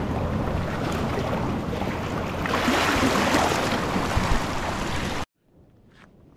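Sea water surging and foaming over rocks close to the microphone, with the rumble of wind on the microphone. The wash swells louder about halfway through, then cuts off abruptly near the end, leaving only a faint background.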